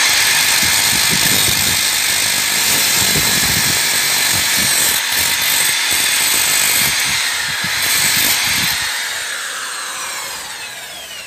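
Corded electric drill spinning a small abrasive cutting disc, grinding against a steel nail in a loud, rough, steady screech. About nine seconds in the disc comes off the metal and the drill winds down with a falling whine.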